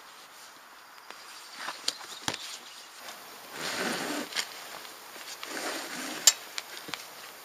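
Hands handling the kayak's steel transport cart and its tie cord: rustling of cord and fabric with scattered light clicks and knocks, and one sharp click about two-thirds of the way through.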